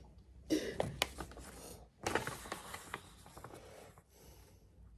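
Paper rustling and crinkling as a sheet of paper is handled, in irregular bursts with a few sharp clicks, strongest about two seconds in.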